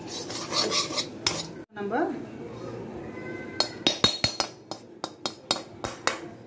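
A metal spoon scraping and clinking against a frying pan (kadai) while stirring a dry ingredient, a run of sharp, irregular clicks. In the second half come quicker taps and scrapes as the contents are scraped out of the pan onto a steel plate.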